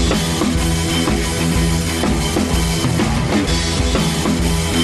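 Rock music with a steady drum beat under held guitar and bass notes.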